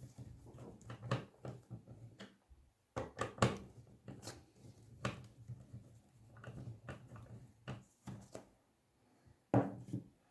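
Scattered clicks and light knocks as a laptop's hidden screw is undone and its plastic-cased optical drive is worked loose, with a faint steady low hum beneath.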